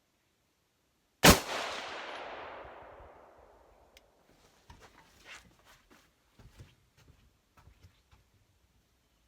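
A single rifle shot from a Mk12 Mod 1-pattern 5.56 mm rifle, sharp and loud, with a long echo dying away over about two seconds. Faint scattered clicks and knocks follow.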